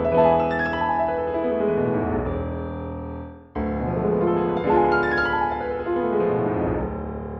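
Background piano music. The phrase dies away about three seconds in, then starts again abruptly and fades once more near the end.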